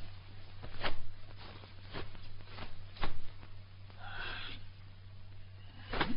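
A Shaolin monk's kung fu routine: about five sharp snaps and thumps from his strikes and steps, with a forceful breath about four seconds in, over a low steady hum.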